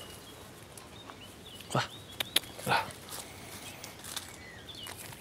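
Truffle-hunting dog making two short vocal sounds about a second apart, midway through, with a couple of sharp clicks between them.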